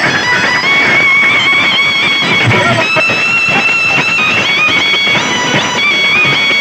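Loud music with a high, sustained melody line that steps from one held note to the next, over a dense, noisy backing.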